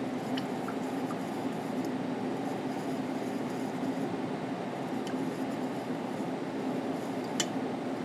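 Steady low background hum of room noise with a faint constant tone in it, and a single sharp click near the end.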